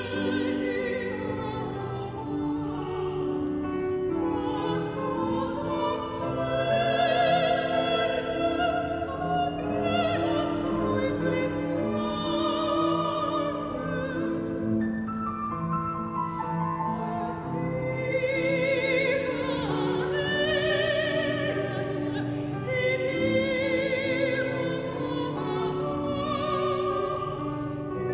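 Operatic soprano singing held notes with vibrato, accompanied by a grand piano.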